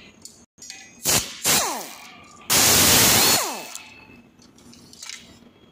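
Handheld power driver run in short bursts on the scooter's folder bolts: two quick bursts about a second in, then a longer burst of about a second in the middle. After each burst the motor winds down in a falling whine.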